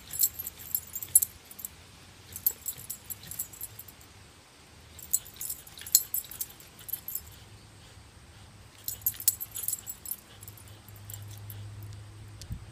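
Metal chain collar jingling in repeated short bursts, a few seconds apart, as a dog thrashes and yanks on a springpole rope.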